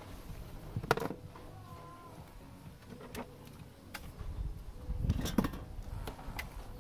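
Scattered sharp plastic clicks and knocks from hands working at a car's bare steering column and its wiring connectors: one click about a second in, a few more later, and a cluster of knocks with dull thumps around five seconds in.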